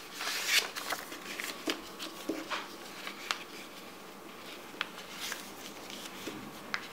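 A sheet of origami paper being handled and creased by hand: a crinkling rustle in the first second, then scattered soft clicks and taps as the folds are pressed down.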